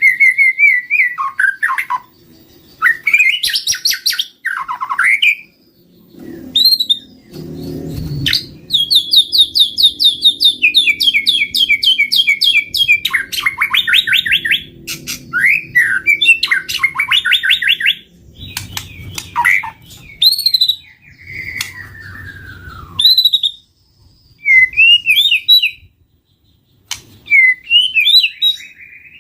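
White-rumped shama singing a loud, varied song in phrases separated by short pauses: clear whistles, long runs of rapid repeated notes through the middle, and a falling whistle later on.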